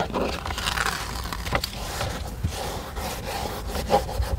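Hands rubbing and scraping a velcro mounting strip firmly into place on a car's trunk trim, with a couple of light knocks.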